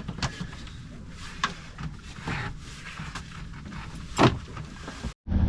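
Wind buffeting the microphone and water rushing past a sailing yacht under sail, with a couple of sharp knocks, the loudest about four seconds in. The sound cuts off abruptly near the end.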